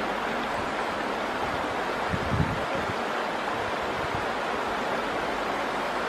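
Steady rushing noise of river water, with a few low bumps and a brief thump a little over two seconds in.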